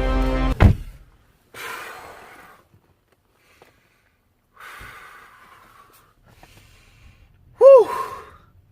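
Background music cuts off under a second in; then a person takes two noisy, gasping inhales and lets out a loud, short sneeze-like vocal burst near the end: the wind-up and release of a theatrical sneeze.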